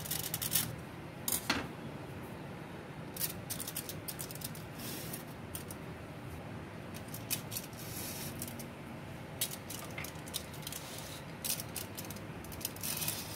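Aluminium foil stretched over small glasses being pierced with a knife tip and wooden ice-cream sticks pushed through it: scattered crinkles and light clicks, some of glass and metal, at irregular intervals.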